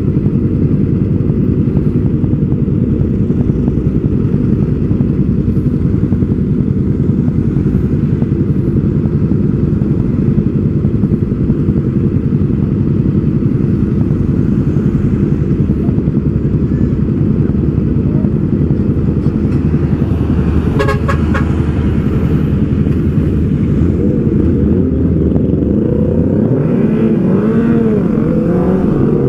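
Kawasaki ZX-6R 636 inline-four sportbike engine idling steadily, then revving up and down as the bike pulls away near the end. A short horn toot sounds from the traffic a little over two-thirds through.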